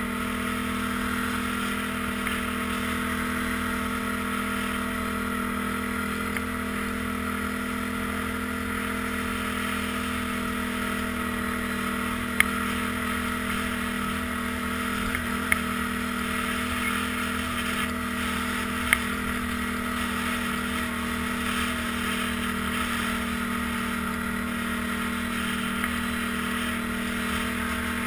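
ATV engine running at a steady cruising speed, with an unchanging drone, and a few sharp clicks about midway.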